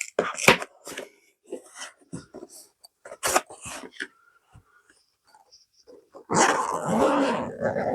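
Clicks and knocks of a plastic tool case being handled and opened. About six seconds in comes a louder, drawn-out sound with a wavering pitch, lasting over a second.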